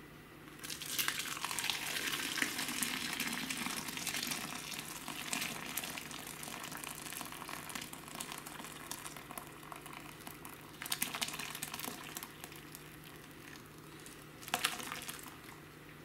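Dashi stock poured from a pot through a paper-towel-lined mesh strainer into a glass bowl: a splashing hiss of liquid that starts about a second in, is strongest for the first few seconds and then thins. It has two brief louder splashes in the last few seconds.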